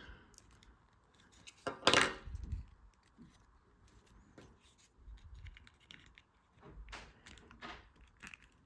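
Plastic action figure and its accessory being handled: small scattered clicks and rattles, with one louder clack about two seconds in as the part is taken off.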